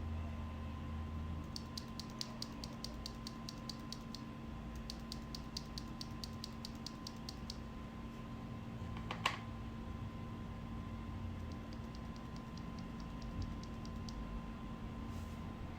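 Mechanical keyboard typing on linear Gateron Ink Black V2 switches lubed with Krytox 205g0. There are three runs of quick, even keystrokes, about eight a second, and one louder single clack about halfway through, over a faint steady hum.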